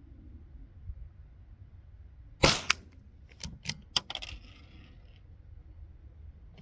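.22 LR rifle fired with a bare muzzle, no suppressor or barrel tape: one sharp shot about two and a half seconds in, then several lighter clicks, and a second shot right at the end.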